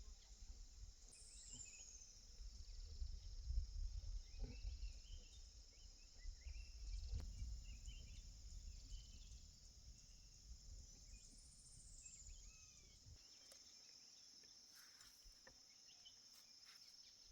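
A steady, high-pitched drone of insects, with two high falling bird calls, one about a second in and one about eleven seconds in. A low rumble underneath stops about thirteen seconds in.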